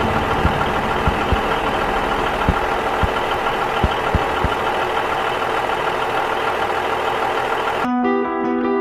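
Old film projector sound effect: a steady mechanical whir and hum with irregular crackles and pops, mostly in the first half. It cuts off abruptly near the end and guitar music begins.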